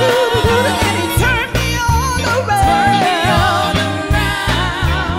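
Women singing a gospel praise song into microphones, a lead voice with a wavering vibrato over a steady, bass-heavy instrumental backing beat.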